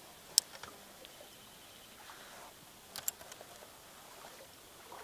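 A few sharp clicks and taps over a quiet outdoor background: one about half a second in, two close together about three seconds in, and another near the end. They come from fishing gear being handled in a canoe.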